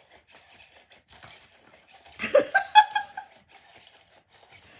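Sony Aibo ERS-1000 robot dog moving, with faint clicking throughout, and about two seconds in a short, high-pitched electronic puppy-like sound from the robot, rising in pitch at the start and lasting about a second.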